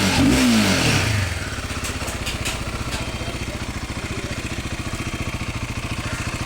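Royal Enfield motorcycle engine revved briefly at the start, the revs falling away within about a second, then settling into a steady idle with an even pulsing beat.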